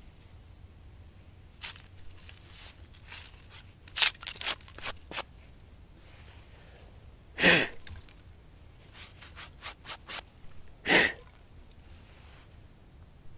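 A hand sweeping dry leaf litter and acorn shell fragments out of a granite mortar hole: scattered crackles and scrapes, with two louder swishes a few seconds apart.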